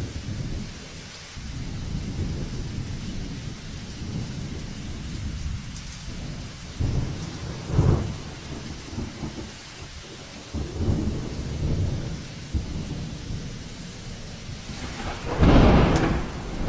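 Heavy rainstorm with a continuous low rumble and a faint hiss of rain. The rumble surges louder about halfway through and most strongly near the end.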